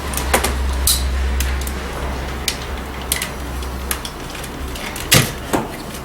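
Scattered clicks and knocks of hands working plastic retaining clips and trim pieces on a Chevy Suburban's door, with a sharper knock about five seconds in. Under them runs a steady low hum that stops shortly before that knock.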